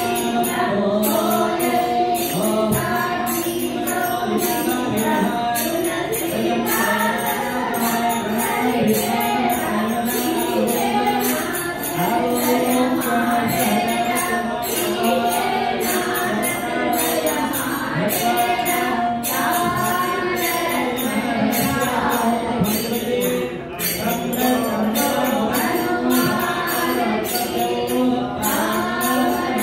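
Devotional music: voices singing together with held, sliding notes, over a steady beat of bright jingling percussion at about two beats a second.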